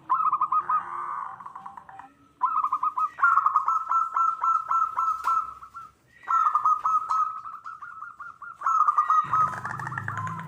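Zebra doves (perkutut) calling in three runs of rapid, repeated short coos, split by brief pauses about two and six seconds in.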